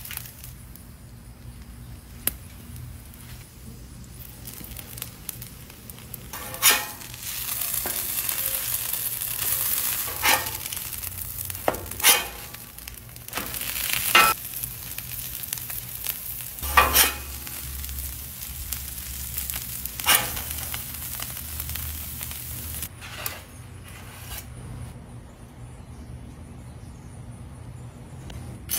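Grilled cheese sandwiches sizzling on a hot flat-top griddle, with a metal spatula scraping across the griddle surface about seven times as the sandwiches are turned. The sizzle dies down about 23 seconds in.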